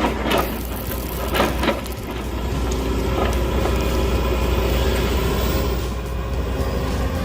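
A heavy machine's engine runs steadily with a deep rumble. There are a few sharp cracks or knocks in the first couple of seconds.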